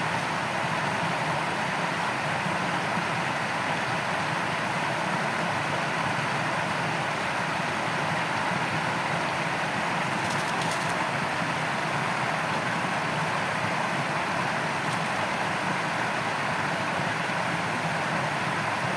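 Shallow stream water running steadily over its bed, an even rushing sound that doesn't change.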